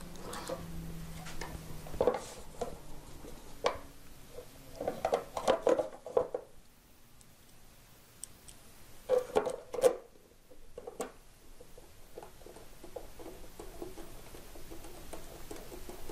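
Hard plastic drive cover being fitted over a planer's chain-and-sprocket drive: a series of clunks and clicks of plastic against metal, the loudest about ten seconds in, with lighter ticking near the end as it is fastened.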